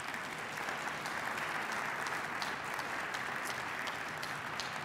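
An audience applauding steadily, welcoming guests who have just been introduced.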